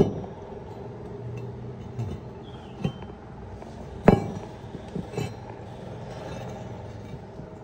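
Several sharp metallic clinks over a steady workshop hum, the loudest about four seconds in.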